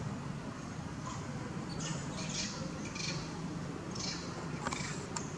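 Several short, high-pitched squeaky calls from an animal, coming in quick groups from about two seconds in, over a low steady hum.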